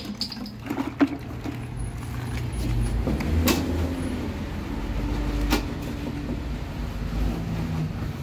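Steady low motor drone with a few sharp knocks, about 1, 3.5 and 5.5 seconds in.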